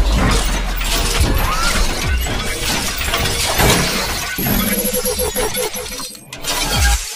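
Produced intro sound effects over music: a dense run of shattering, crackling impacts and whooshes. It dips briefly about six seconds in, then cuts off sharply near the end.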